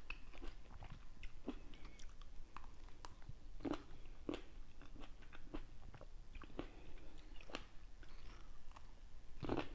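Green grapes being bitten and chewed: irregular small crunches and clicks from the mouth.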